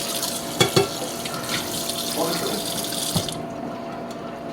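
Kitchen tap running into a sink, turned off abruptly about three seconds in, with a few knocks against the sink while it runs.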